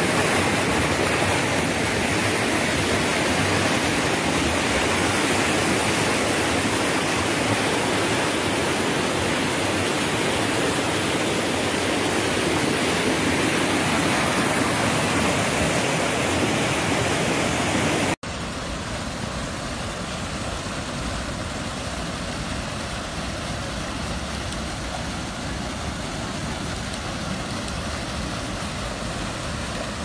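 Muddy floodwater rushing over the rocky spillway of an overflowing reservoir, a loud steady rush of water. About eighteen seconds in it cuts off abruptly and gives way to a quieter steady rush of water pouring over a rock ledge.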